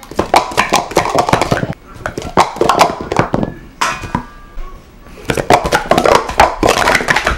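Plastic sport-stacking cups clattering in rapid clicks as a 3-6-3 stack is built up into pyramids and swept back down, in three quick bursts with short pauses between.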